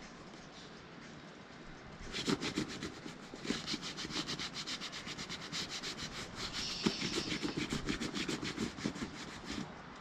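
Bare hand briskly rubbing boot cream into a leather jacket sleeve: rapid back-and-forth strokes, about five a second, starting about two seconds in and stopping just before the end.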